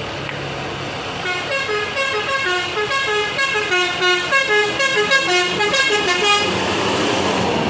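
Bus 'telolet' musical air horn playing a quick melody of short stepped notes for about five seconds, starting about a second in. It is followed by a louder steady rush of the bus's engine noise.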